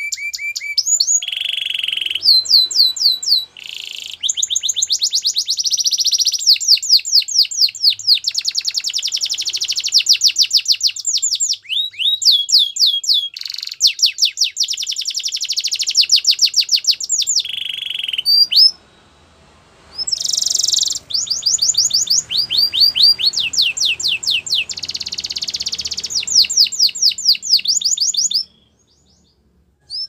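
Domestic canary singing: long, fast trills of rapidly repeated high chirps, changing from one trill to the next and broken by short pauses.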